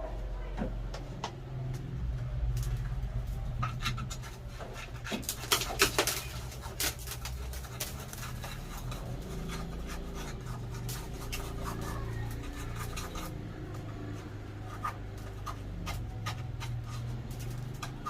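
Scratching, scraping and small knocks as loose debris and concrete dust are cleared out of an electrical switch box by hand, busiest about five to seven seconds in, over a steady low hum.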